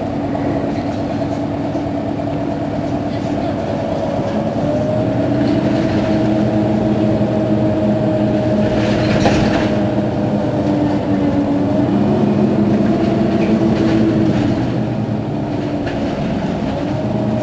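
Mercedes-Benz Citaro Facelift city bus engine idling at a stop, a steady hum whose pitch shifts slightly now and then. A short hiss comes about nine seconds in.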